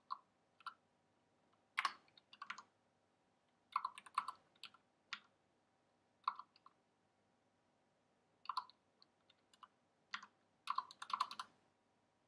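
Keystrokes on a computer keyboard, typed in short bursts with pauses between, as numbers are entered into fields.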